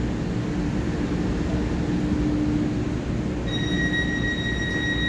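Taiwan Railway EMU3000 electric multiple unit standing at the platform with its doors open, its onboard equipment humming steadily over a low rumble. About three and a half seconds in, a steady high warning tone starts: the door-closing warning before departure.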